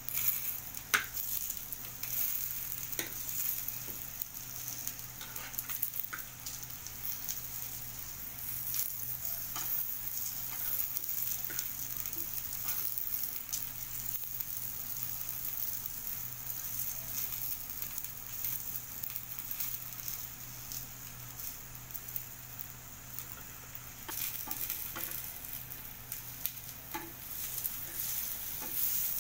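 Stuffed snake gourd pieces sizzling steadily in oil in a nonstick pan on low heat, with a steel spoon now and then clicking and scraping against the pan as the pieces are turned.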